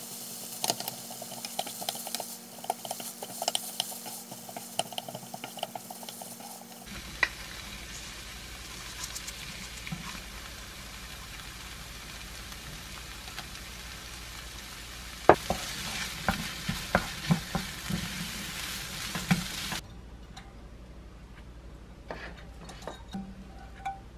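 Kimchi fried rice with konjac rice sizzling in a nonstick frying pan while a wooden spoon stirs and scrapes it. A run of sharp knocks from the spoon on the pan comes about two-thirds of the way through. Near the end the sizzling stops, leaving only light scraping.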